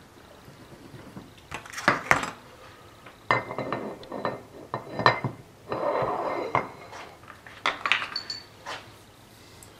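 Cast-iron and steel parts of a Hercus lathe's compound slide being handled and fitted: a scatter of metal clinks and knocks, with a rubbing, sliding stretch of about a second near the middle.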